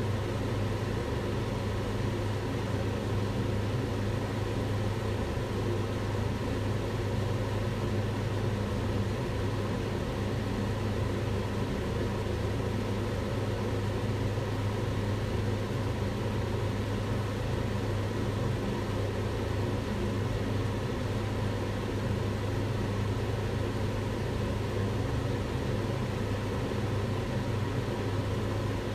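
Kitchen range hood fan running steadily: a constant rush of air over a low, even hum.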